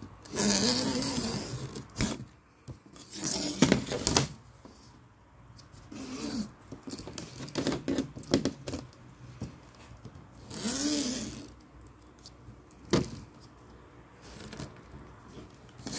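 Utility knife blade drawn along a screen frame's spline, slicing off excess fiberglass screen mesh in several scratchy strokes of about a second each, with a sharp click about three seconds before the end.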